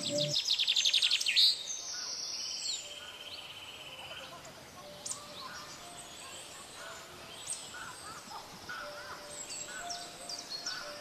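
Forest birds chirping and calling. A loud, rapid trill comes in the first second and a half, and a brief buzzy trill about two seconds in.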